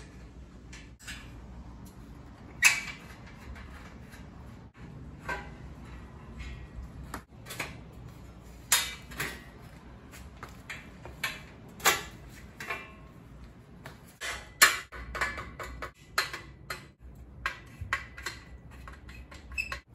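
Irregular metallic clinks and clicks of hand tools, a wrench among them, working the bolts of a sheet-steel machine stand as it is taken apart, with tools and parts knocking on the metal. Two sharper clanks stand out, a little under 3 s in and about 14 s in.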